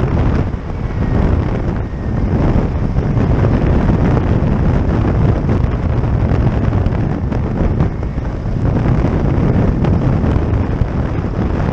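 Heavy wind buffeting on a helmet-mounted microphone over the steady running of a flexwing microlight trike's Suzuki G13BB 1.3-litre engine.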